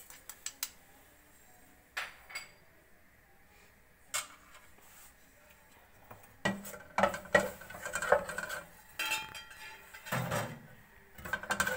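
Spoon clinking on the rim and inside of an aluminium cooking pot as whole dry spices are tipped in, then a spatula stirring and scraping the spices around the pot's bottom. A few separate taps come first, and the clinks and scrapes grow busier through the second half.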